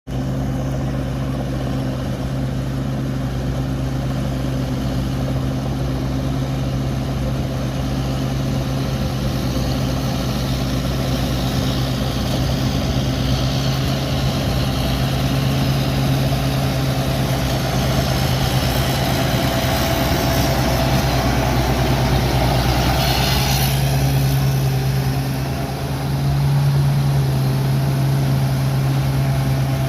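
Large rice combine harvester's engine running steadily with an even low drone; the level dips briefly near the end, then comes back a little louder.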